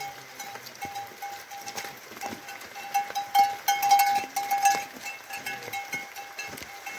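A metal livestock bell clanking over and over with a ringing tone, loudest about three to five seconds in.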